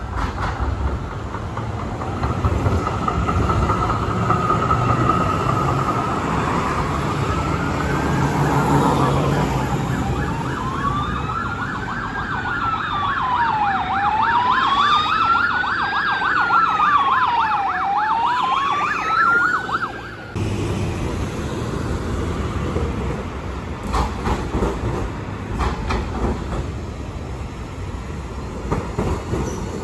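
Emergency vehicle siren wailing, its pitch sweeping slowly up and down with a much faster yelping sweep over it. It starts about six seconds in and cuts off abruptly about two-thirds of the way through, leaving city street traffic noise.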